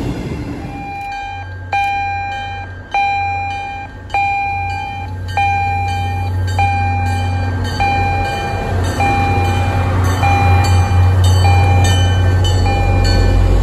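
Diesel locomotive bell of an MBTA commuter train ringing steadily as the train approaches the station, one clang a little over every second. Under it the locomotive's diesel engine rumbles, growing louder near the end as the locomotive passes close by.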